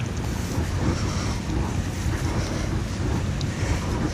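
Wind buffeting a chest-mounted GoPro's microphone: a steady low rumble with a fluctuating noisy hiss over it.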